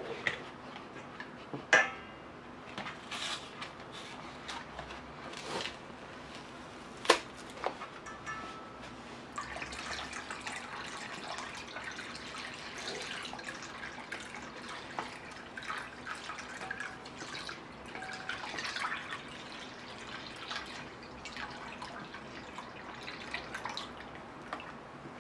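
Grape juice and dissolved gelatin stirred with a wooden spoon in a stainless steel bowl while more juice is poured in from a carton: liquid sloshing and splashing. A few sharp knocks of the spoon against the bowl come in the first several seconds, and the pouring and splashing are busiest from about ten to twenty seconds in.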